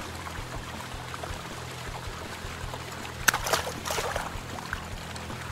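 Water trickling steadily, with a short burst of splashing a little over three seconds in.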